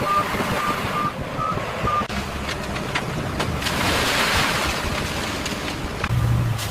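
Repeated electronic beeps at one steady pitch, about three a second, stop about two seconds in. Under them runs a steady mechanical rumble with a haze of noise that swells around the middle.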